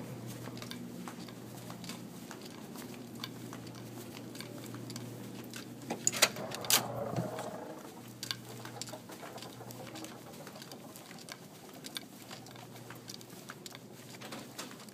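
Footsteps on a hard office floor, light ticks repeating steadily over a steady low hum. About six to seven seconds in come two louder sharp knocks.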